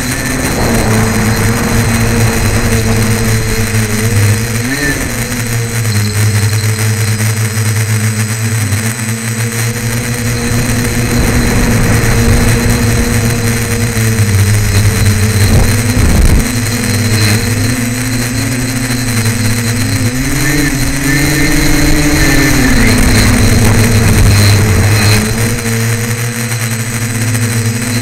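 Tricopter's electric motors and propellers running in flight, heard up close from the onboard camera: a steady hum with a faint high whine above it. Its pitch wavers with throttle, rising about three quarters of the way in and dropping back a couple of seconds later.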